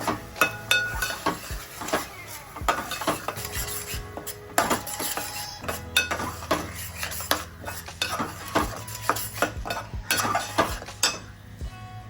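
A metal spoon stirring and scraping spice masala around a frying pan, with irregular clinks of metal on the pan and a light sizzle.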